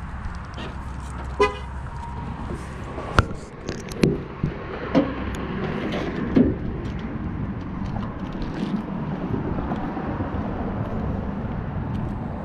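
A single short car-horn toot, then a sharp click and a few knocks and thumps, over a steady low outdoor rumble.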